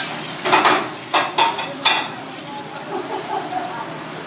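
Cold tap water spraying onto chopped monkfish pieces in a plastic basket in a metal sink, a steady hiss. A few louder, sharp splashes come in the first two seconds as the gloved hands work in the stream.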